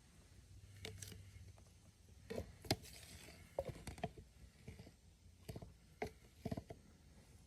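Faint, scattered light taps and clicks of small objects being handled and set down, irregular and a few per second at most, the sharpest about a third of the way in.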